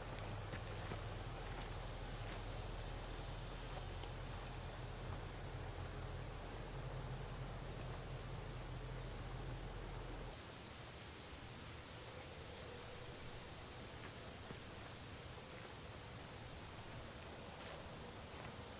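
Insect chorus, a steady high-pitched trilling over a low hum. About halfway through, the hum stops suddenly and the trilling turns louder with a fast pulsing.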